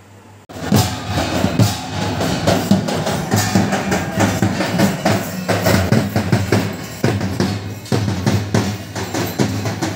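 Large double-headed barrel drums of a street drum group, beaten in a fast, driving rhythm. The drumming starts abruptly about half a second in.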